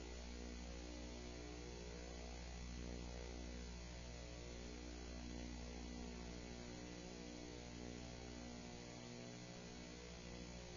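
Faint, steady electrical mains hum with a stack of overtones.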